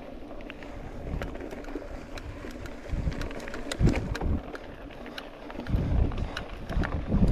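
Wind buffeting the microphone during a ride over rough ground, in uneven low rumbling swells, loudest about three to four seconds in and again near the end. Scattered sharp clicks and rattles come from the ride itself.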